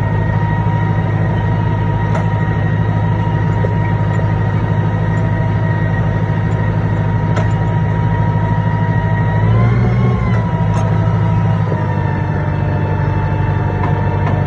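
Tractor running steadily while it pulls a chain-conveyor digger along the crop rows: a low engine drone with a high whine over it. The whine rises briefly in pitch about ten seconds in, then settles back.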